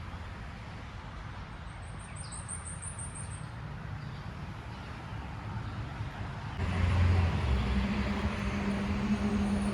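Low outdoor rumble with a brief high bird trill about two seconds in; about two-thirds through, an engine comes in louder with a steady low hum and keeps going.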